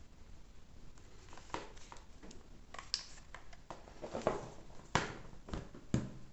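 Irregular handling noises in a small room: a string of light clicks and knocks with brief rustling, the sharpest knocks about five and six seconds in.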